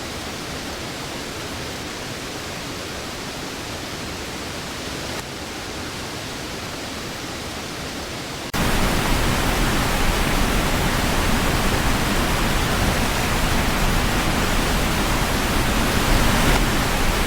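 Steady, even rushing noise of water. It jumps louder and fuller in the low end at an abrupt cut about eight and a half seconds in.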